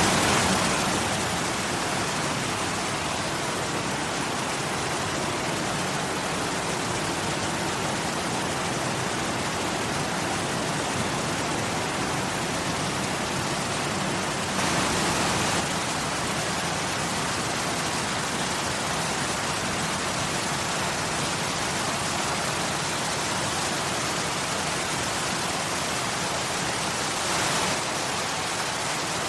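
Waterfall: water pouring in a steady, even rush. The level drops slightly about a second in and briefly rises for about a second around the middle.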